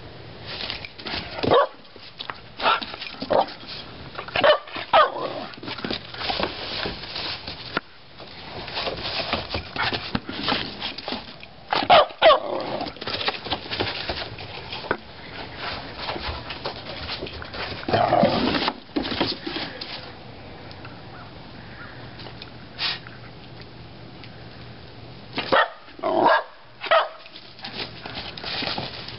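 A black dog barking in short, scattered barks, several in the first few seconds, more in the middle, and a quick cluster near the end.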